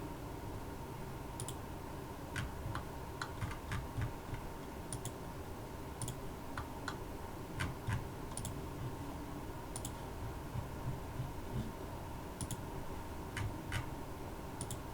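Irregular computer mouse and keyboard clicks, a couple of dozen sharp taps at uneven intervals, over a faint steady background hum.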